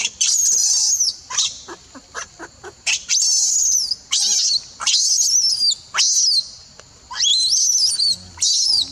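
Infant macaque screaming in repeated high-pitched shrieks, about eight in a row, each rising then falling in pitch. This is the distress of a baby being pushed away from its mother and refused the nipple.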